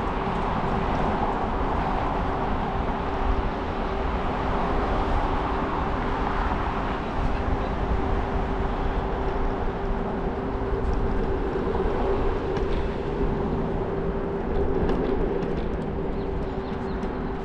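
Riding a scooter: wind rumbling on the microphone and rolling road noise, with a steady whine held at one pitch.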